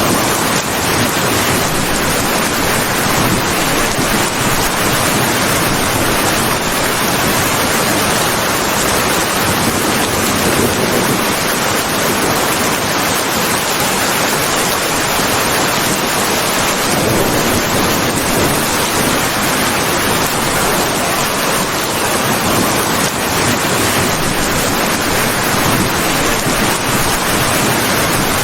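Steady heavy rain, a dense even hiss that keeps the same level throughout.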